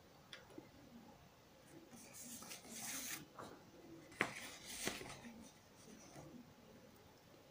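A sheet of paper being handled and swapped, rustling for about a second, then a sharp tap about four seconds in and a softer rustle just after.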